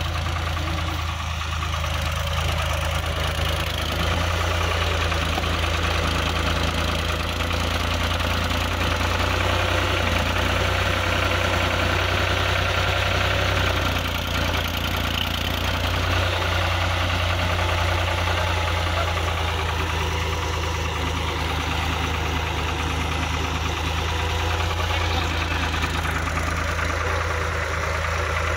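Tractor diesel engine running steadily at low revs, a constant low hum with a light knock.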